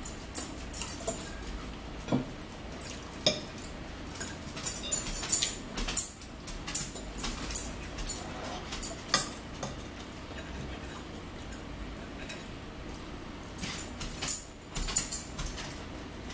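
Forks clinking and scraping against plates and a salad bowl during a meal: irregular sharp clicks, loudest in clusters about five seconds in and again near the end.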